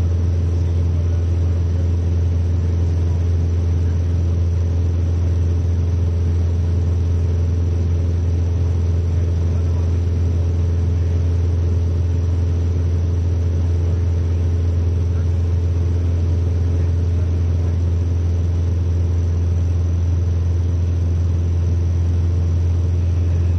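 Mooney single-engine piston engine and propeller droning steadily in cruise flight, heard inside the cockpit: a loud, even low hum with no change in power.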